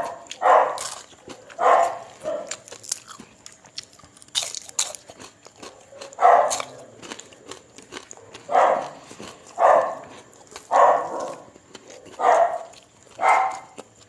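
A dog barking in single barks, about nine of them, mostly a second or so apart with a pause of several seconds in the middle. Between the barks come close crunching and biting sounds of someone eating.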